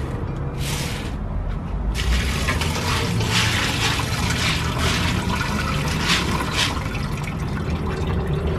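Dried black-eyed peas scooped by hand and poured into a bowl over a woven basket, a hissing pour with several stronger surges from about two seconds in.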